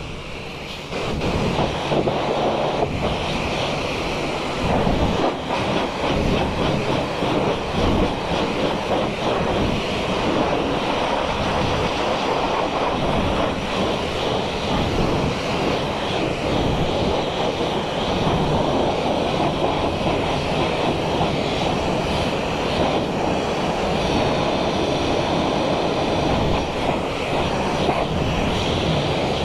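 Motorcycle engine running steadily under way, mixed with wind rush on the microphone.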